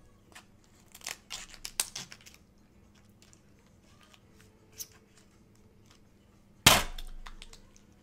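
Kitchen shears snipping through the shell of a cooked lobster tail: a quick run of crisp crunching snips about a second in, a lone click near the middle, then one loud sharp crack of shell near the end, the loudest sound of all.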